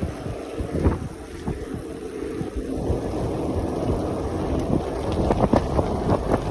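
Wind buffeting the microphone as a steady low rumble, with irregular knocks and thumps, several of them close together from about five seconds in.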